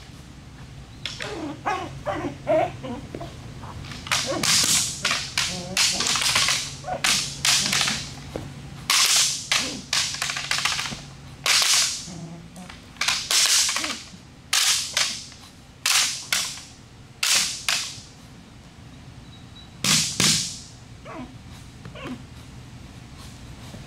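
Short, sharp swishing slaps in quick, irregular runs from a padded bite suit and a helper's stick, as a Malinois puppy grips and tugs the suit leg.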